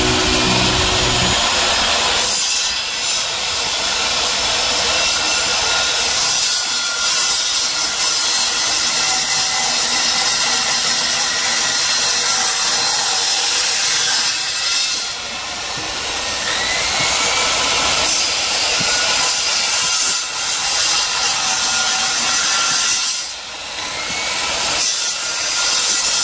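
Handheld circular saw cutting through the edge of an aluminium boat-propeller blade: a loud, steady, high-pitched cutting noise that dips briefly several times as the cut eases and resumes.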